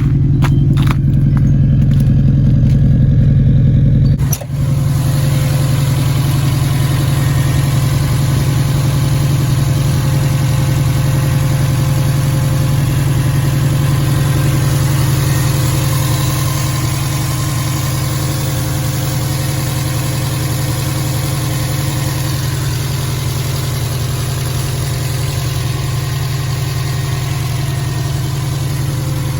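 Subaru WRX's turbocharged flat-four engine running steadily at idle, freshly started after a front-mount intercooler install. About four seconds in the sound briefly drops and changes, then carries on steady with more hiss.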